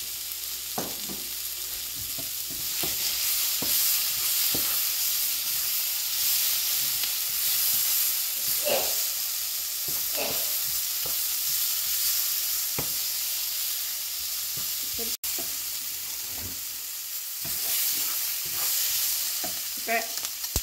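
Onions, bell peppers and chillies sizzling in a non-stick frying pan while being stir-fried, with the wooden spatula scraping and tapping against the pan now and then. The sound cuts out for an instant about fifteen seconds in.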